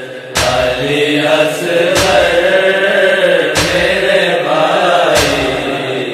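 A boy's voice chanting a nauha, a Shia lament, in a drawn-out, wavering melody. A heavy beat strikes four times, about every second and a half.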